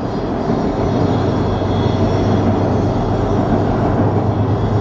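A train passing: a steady, loud noise with a low hum underneath.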